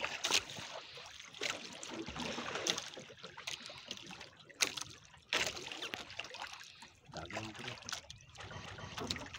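Sea water sloshing and splashing against the hull and outrigger of a small outrigger boat on choppy water, with several sharper slaps.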